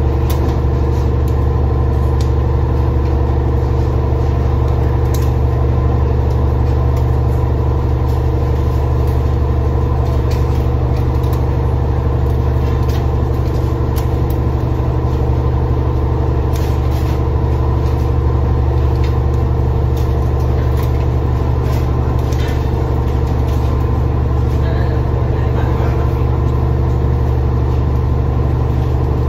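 Passenger riverboat's engine running with a steady low hum heard on board, with occasional light clicks.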